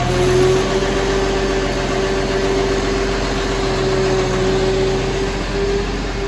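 International Harvester 1466's turbocharged six-cylinder diesel idling steadily soon after a cold start in sub-freezing weather, with a steady whine over the idle.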